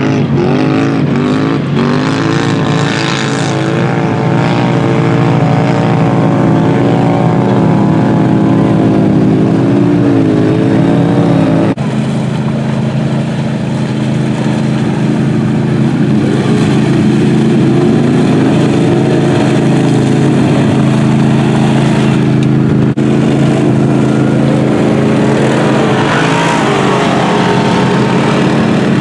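Off-road engines of a four-wheeler ATV and side-by-side UTVs running and revving, their pitch rising and falling over a steady low drone. The sound changes abruptly twice, about 12 and 23 seconds in.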